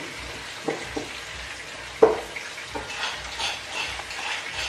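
Petai beans dropped by hand into a rice cooker's inner pot of cooking nasi liwet, landing with a few light knocks, the loudest about two seconds in. Soft sizzling and crackling from the hot pot comes up in the second half.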